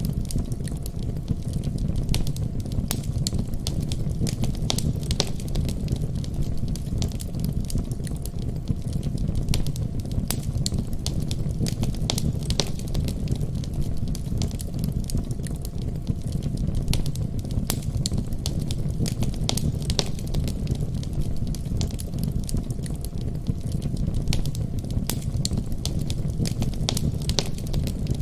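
Fireplace fire crackling, with frequent irregular pops and snaps over a steady low rumble.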